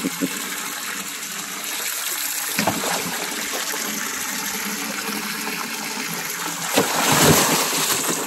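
Water running into a boat's livewell, a steady rushing and splashing, with a louder splashing surge about seven seconds in. A few light knocks come near the start.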